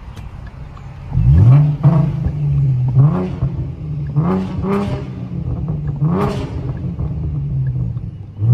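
Ford Mustang GT's V8 engine running under load, surging loudly as the throttle is pressed about a second in, then rising in pitch several more times as it accelerates.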